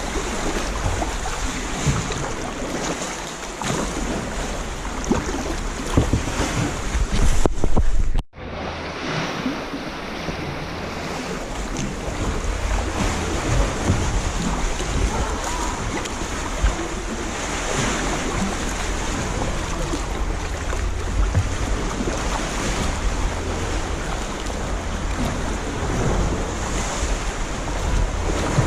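Wind rumbling on the microphone over lake water, with waves lapping and sloshing around the kayak. It drops out abruptly for an instant about eight seconds in, then carries on.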